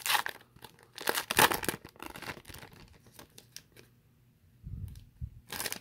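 The foil wrapper of a hockey card pack being torn open and crinkled by hand, in several short rips with the loudest about a second and a half in. A dull bump comes near the end.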